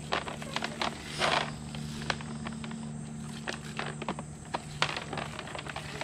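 Açaí berries being stripped by hand from their bunches, many small berries clicking and pattering into a plastic tub, with a brief louder rustle of the dry stems about a second in.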